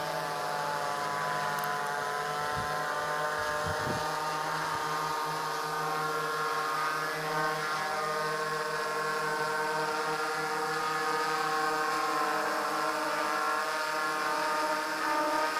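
A hexacopter's six brushless U7 motors and 18-inch propellers running steadily in a hover, a multi-rotor buzz of several steady pitches.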